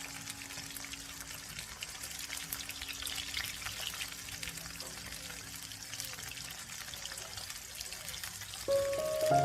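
Chicken frying in hot oil, a steady sizzle with many small crackles. Music comes in near the end.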